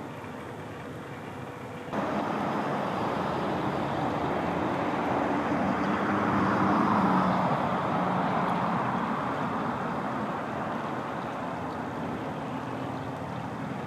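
Road vehicle noise: a car or truck passes, swelling to its loudest about halfway through with a low engine hum, then slowly fading. The background noise steps up abruptly about two seconds in.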